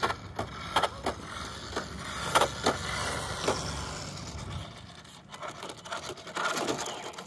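Redcat 1964 Impala lowrider RC car's hard little wheels rolling over rough asphalt: a steady gritty rumble with scattered clicks and knocks.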